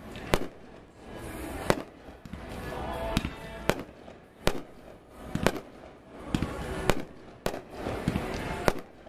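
Aerial firework shells bursting overhead: sharp bangs about once a second, with a rising and falling wash of sound between them.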